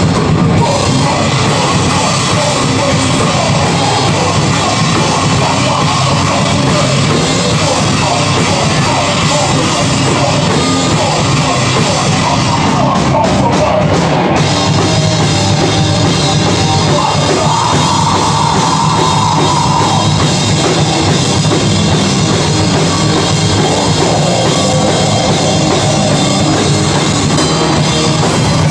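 Heavy metal band playing live: distorted guitar over a drum kit, loud and dense without a break.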